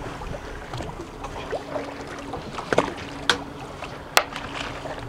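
Background sounds aboard a fishing boat at sea: wind and water noise under a faint steady hum, broken by a few sharp clicks.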